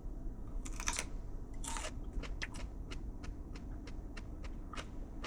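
A person biting into and chewing a raw hot pepper, with two crunchy bites about a second in, then a run of short wet clicks of chewing.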